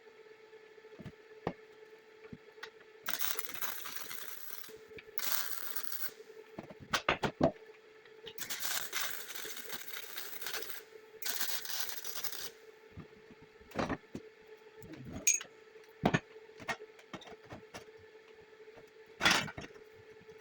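Metal workshop handling: sharp metallic clinks and knocks, with four bursts of hissing or scraping noise, each a second or two long, over a steady low hum.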